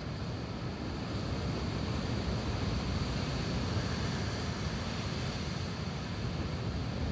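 Rough storm surf breaking against rocky cliffs and washing over the rocks: a steady, low rushing noise, with wind on the microphone.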